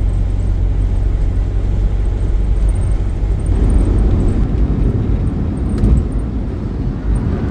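Steady road and engine rumble of a Class C motorhome under way, heard from inside the cab.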